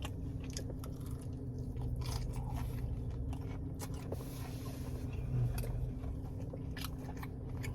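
A person chewing a breaded, fried mozzarella cheese bite close to the microphone: irregular small clicks and crunches of chewing.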